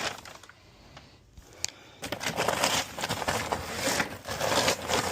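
Heavy paper lawn bags rustling and crinkling as they are handled and laid into a wooden chest. The sound is quiet for the first two seconds apart from a couple of small clicks, then becomes a dense, continuous crackle.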